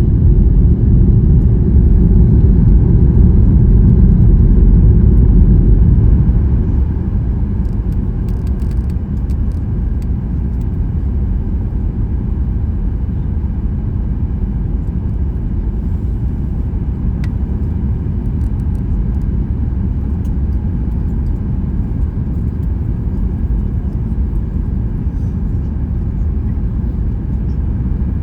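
Steady low rumble of a moving vehicle heard from inside, dropping noticeably in level about six seconds in, with a few light clicks or rattles.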